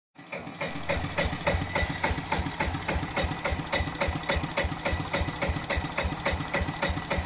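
Vintage Yanmar diesel engine running slowly with an even, loud knock at about four beats a second: the typical diesel knocking of this engine at low speed.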